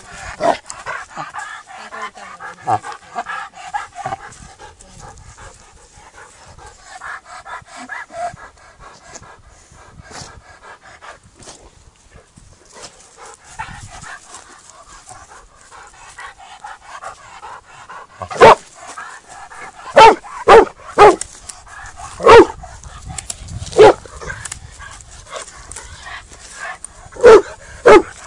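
Dog barking: after a stretch of quieter, higher wavering sounds, about eight sharp, loud single barks come in the second half.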